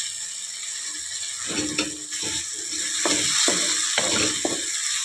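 Wooden spatula scraping and stirring tomato-onion masala around a kadhai, a run of quick scrapes about a second and a half in, over the steady sizzle of the masala frying in oil.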